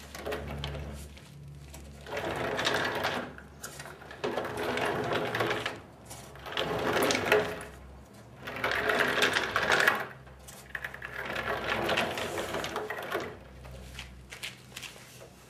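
Homemade caster base under a table saw being worked: 2-inch black plastic swivel casters and a wooden lever lift mechanism making five separate spells of mechanical noise, each a second or two long, with short pauses between.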